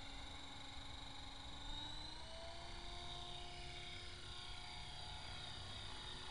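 EXI 450 Pro electric RC helicopter (an Align T-Rex 450 Pro clone) in flight: a steady whine from its motor and rotor, which steps up in pitch about two seconds in.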